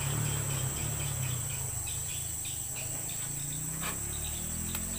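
Insects in riverside forest droning steadily at a high pitch, with a short chirp repeated several times a second, over a low hum. Two faint clicks near the end.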